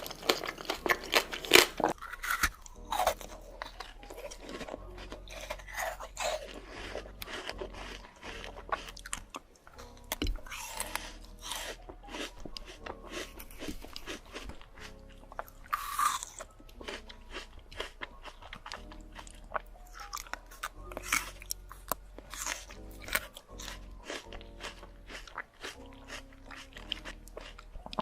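Close-up crunching and chewing of fresh fruit, with repeated crisp bites and mouth sounds, over soft background music.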